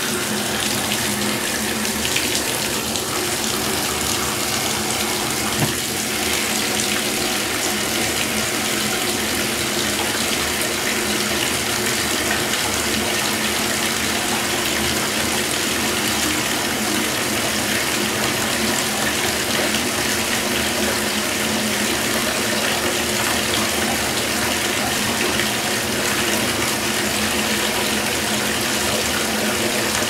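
Bath faucet running steadily into a fiberglass bathtub as it fills: an even, unbroken rush of water.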